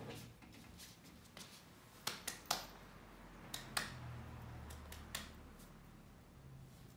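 Hands clapping sharply to call a puppy over: a quick run of three claps about two seconds in, two more a second later, and one more just after five seconds.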